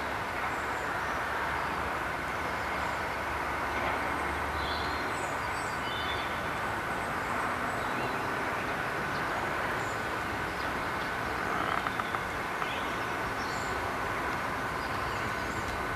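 Diesel locomotive engine running steadily as it slowly hauls a train of engineering wagons, with birds chirping. A few quick clicks come about twelve seconds in.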